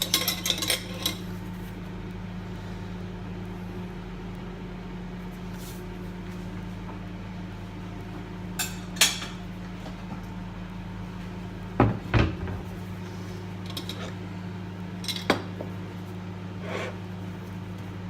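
Microwave oven running with a steady hum while poached eggs cook, with clinks and knocks of dishes and cutlery on top: a clatter at the start, then single knocks now and then, one of them a duller thump about two-thirds of the way through.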